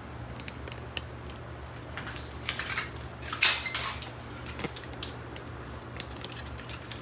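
Hard plastic clicking and clattering as a mechanical keyboard is handled, with scattered light clicks and a louder rattle about three and a half seconds in.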